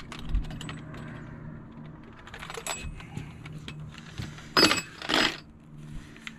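Metal fish lip grippers and scale clinking and rattling as they are handled, with two louder clanks close together about four and a half and five seconds in, over a steady low hum.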